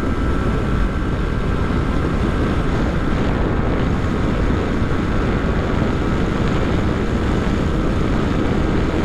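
Yamaha R15's single-cylinder engine running hard at full throttle in fifth gear, mixed with heavy wind rush over the microphone at about 115 km/h. The sound stays steady with no gear changes.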